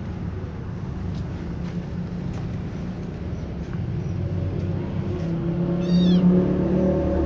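A kitten gives one short, high meow about six seconds in, over a steady low rumble.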